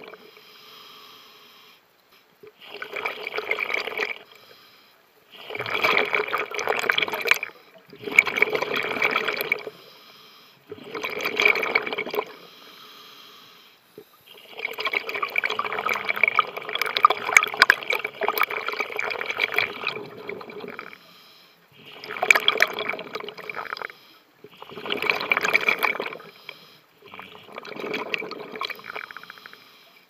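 Scuba diver breathing through a regulator underwater: about eight bursts of exhaled bubbles rushing out every few seconds, with one longer exhalation near the middle and quieter pauses between.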